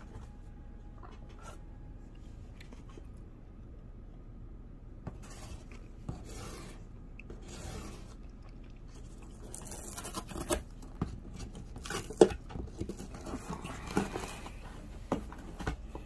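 Blue-and-gold macaw chewing and tearing at a cardboard box, with scattered crunches and rips. Sparse and faint at first, then busier in the second half, with several sharp snaps of cardboard giving way.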